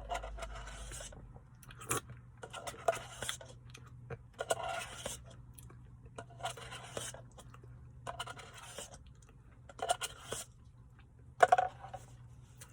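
Spoon scraping through a thick Blizzard ice-cream treat in its cup. There are about seven separate scraping strokes, each under a second, with the loudest one near the end.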